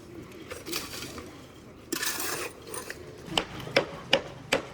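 Metal hand tools scraping on concrete, then four sharp knocks in quick succession, about 0.4 s apart, near the end.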